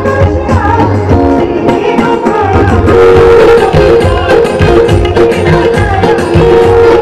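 A song performed live with drum accompaniment: a melody over steady held notes and a running drum rhythm, loud and continuous.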